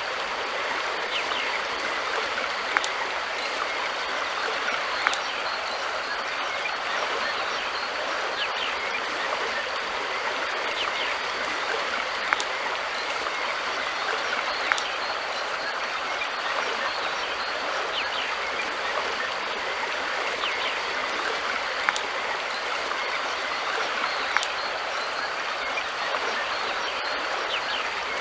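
River water flowing in a steady rushing wash, with a few sharp clicks standing out every few seconds.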